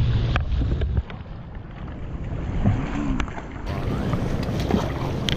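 Wind buffeting the microphone over running river water, with a few short splashes from a hooked walleye thrashing at the surface as it is landed. The wind rumble drops away about a second in.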